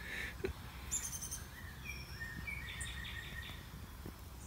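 Small birds chirping: a high trill about a second in, then a run of short chirps and brief rising notes, over a steady low background rumble.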